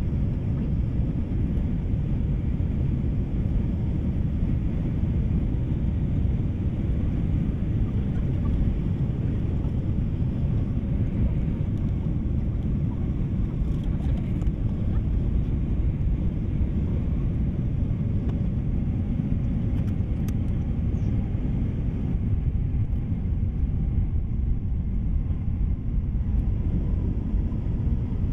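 Steady low rumble of an airliner's engines and airflow heard inside the passenger cabin during descent, even and unchanging.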